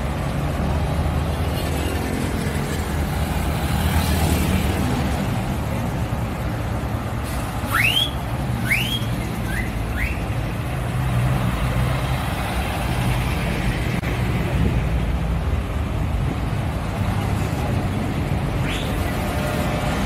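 Vintage city buses and road traffic passing, with a steady low engine rumble. About eight seconds in come four quick rising whistles, two longer then two shorter, and one more near the end.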